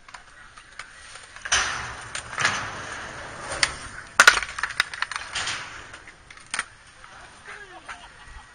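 Skateboard sliding down a metal stair handrail, a rough scrape with sharp clacks from about a second and a half in. It ends in a loud clack of the board hitting the concrete just after four seconds, followed by a few scattered clacks.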